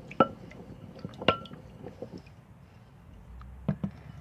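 A utensil stirring slime mixture of glue, water and laundry detergent in a bowl: wet squishing with a few clinks against the bowl, two of them ringing briefly.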